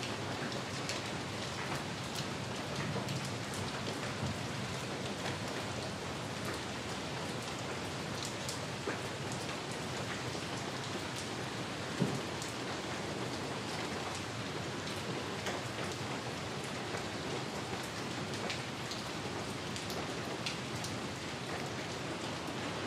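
Steady rain, with scattered drops ticking close by and one louder knock about twelve seconds in.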